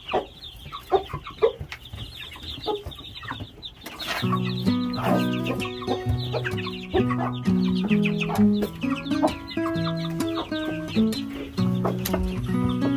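A hen clucking with chicks peeping around her. About four seconds in, background music with steady held notes starts and carries on over them.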